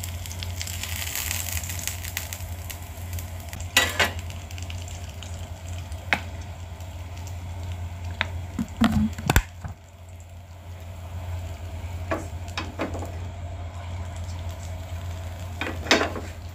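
Egg-and-flour pancake batter sizzling gently in a frying pan on low heat, over a steady low hum. A spatula scrapes and knocks against the pan several times as the cooked pancake is rolled over.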